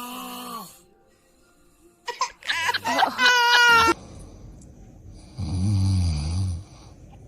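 A single loud snore about five seconds in, a low rattling rumble lasting just over a second. Before it, about two seconds in, a high-pitched voice squeals for about two seconds, louder than the snore.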